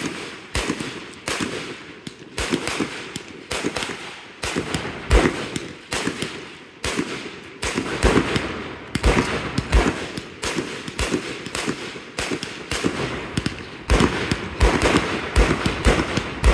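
Aerial fireworks shells being launched and bursting in quick succession: a steady run of sharp booms, one or two loud ones a second, with smaller bangs between them.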